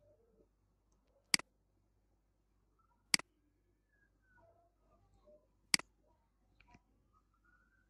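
Computer mouse clicking: three sharp single clicks a couple of seconds apart, then a fainter click near the end.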